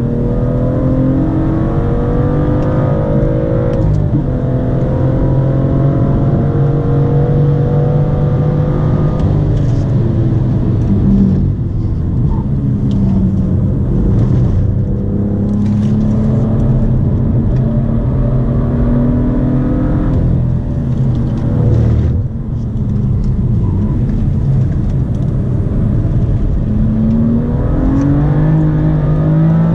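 BMW M2 F87's 3.0-litre turbocharged straight-six with a performance exhaust, heard from inside the cabin under hard track driving. The engine note climbs through the revs and drops back at each gear change of the six-speed manual, over and over.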